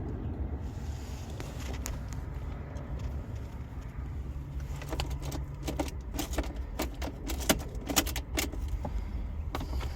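A bunch of keys jangling and clicking in a run of sharp jingles through the second half, over a steady low background rumble.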